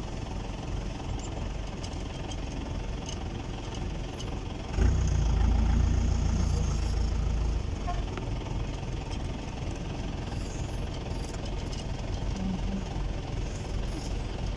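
Vehicle engine running with a steady low rumble, which grows louder and heavier for a few seconds starting about five seconds in.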